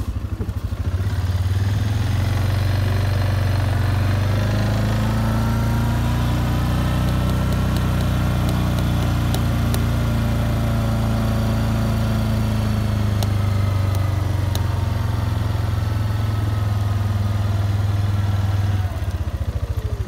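Small farm vehicle's engine pulling away, its pitch rising as it gathers speed and then easing down, dropping as it slows near the end, with a few light clicks and rattles.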